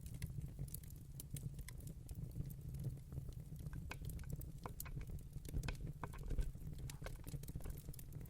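Wood campfire crackling: frequent irregular pops and snaps over a steady low rumble, with one louder pop about six seconds in.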